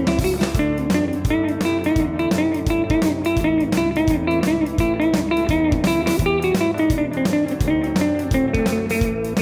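Background music: electric guitar over a steady drum beat.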